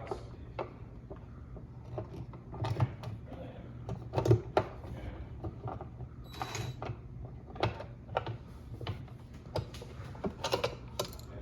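Plastic refrigerator ice-dispenser parts being handled and fitted together: irregular clicks, knocks and light rattles, over a low steady hum.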